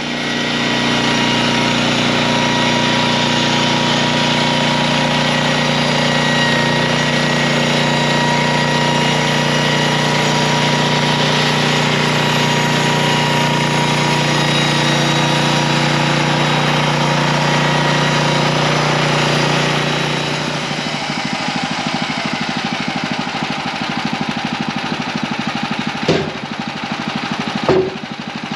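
Portable bandsaw sawmill's engine running steadily under load as the band blade cuts spruce, the sound dropping and changing about two-thirds of the way through. Two short knocks near the end as cut boards are handled.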